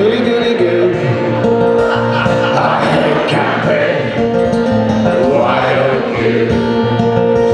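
Acoustic guitar strumming under singing, in the chorus of a live folk song.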